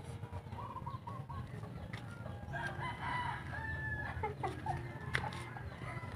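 A rooster crowing, one long call about two and a half seconds in, after a few short chicken calls, over a steady low rumble.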